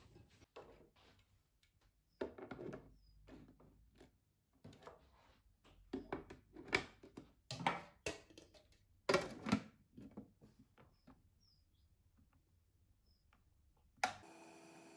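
Clear plastic food-dehydrator trays knocking and clattering against each other and the base as they are stacked, a string of sharp plastic knocks. Near the end a click, and the dehydrator's fan starts a steady hum as it is switched on.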